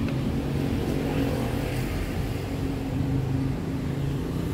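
Honda CR-V 2.4's four-cylinder engine idling steadily with the air conditioning on, a steady low hum.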